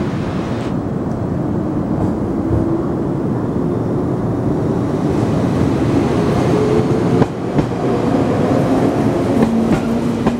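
JR East 115 series electric multiple unit moving along a station platform: a steady rumble, with a motor whine that rises in pitch about halfway through. Several sharp wheel clacks come in the last few seconds.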